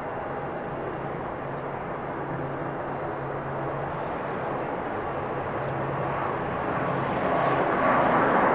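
Jet airliner engines, a steady rumble that grows louder over the last few seconds as the aircraft comes closer, with a whine coming in near the end.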